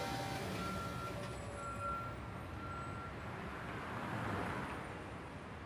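Distant city road traffic, with a broad swell of passing-vehicle noise about four seconds in. A faint high steady tone comes and goes over the first half.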